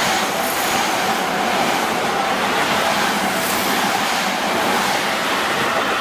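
Seibu Ikebukuro Line electric commuter train passing at close range over a level crossing: a steady, loud rush of wheels on rail and car bodies going by. The crossing's warning bell rings faintly underneath, with wind buffeting the microphone.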